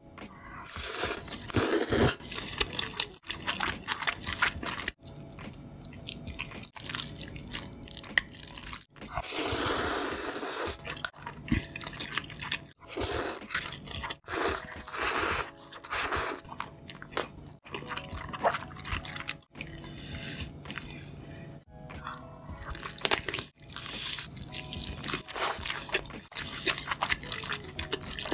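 Close-miked eating sounds: wet chewing, crunchy bites into glazed fried chicken, and slurping of black bean noodles, a busy run of short clicks and wet smacks.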